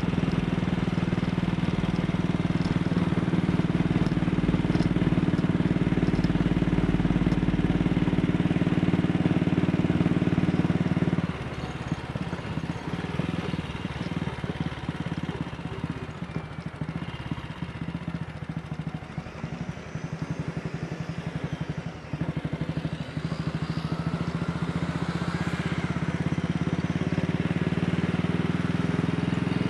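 Single-cylinder engine of an AJS Model 8 motorcycle running steadily under throttle. It drops away suddenly about a third of the way in as the throttle is shut, runs quieter on the overrun, and pulls again for the last few seconds.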